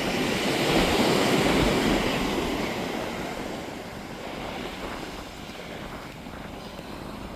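Gentle waves washing onto the shore, with wind buffeting the microphone. The wash is loudest in the first couple of seconds, then dies down.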